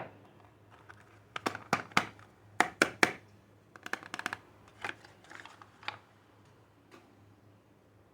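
Soap packaging being unwrapped by hand: a quick run of sharp clicks and crackles from the wrapper, then softer, scattered rustling.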